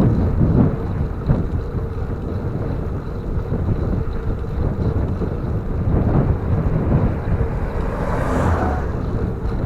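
Wind buffeting the microphone of a camera carried on a moving bicycle: a steady low rumble, with a brief hiss a little after eight seconds in.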